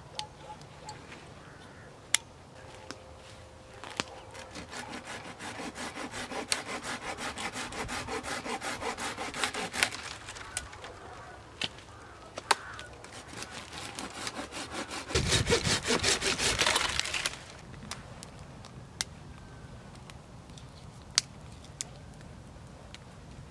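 Folding hand saw cutting through a tree branch with rapid back-and-forth strokes, growing louder for about two seconds near the end and then stopping abruptly. A single sharp click comes about two seconds in, before the sawing starts.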